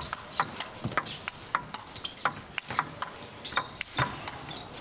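Table tennis ball clicking off the players' bats and bouncing on the table in a fast rally: a quick, steady run of sharp ticks.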